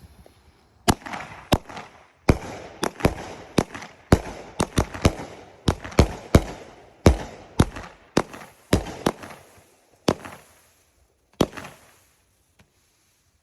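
A 200-gram 16-shot consumer fireworks cake (Pro Fireworks 'Trumped Up') firing, with its shots launching and bursting in a fast, irregular string of sharp bangs. The bangs stop about eleven and a half seconds in.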